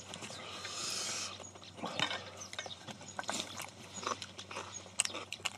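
People eating: chewing and mouth sounds, with scattered clicks of metal chopsticks against stainless steel bowls, and a brief hiss about half a second in.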